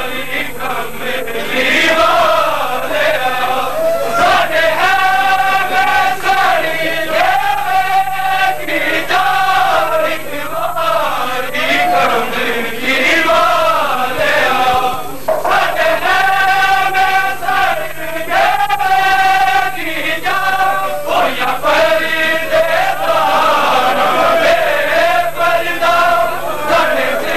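Men's voices chanting a Punjabi noha (mourning lament) together, a group reciting the melodic lines in unison with long held notes and repeated phrases.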